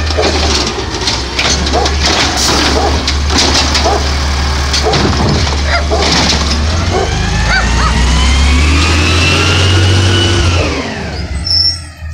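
Natural-gas automated side-loader garbage truck at work: clanks and knocks from the lifting arm handling a cart over the steady engine hum, then a rising whine as the engine revs and the truck pulls away, dropping off and fading near the end.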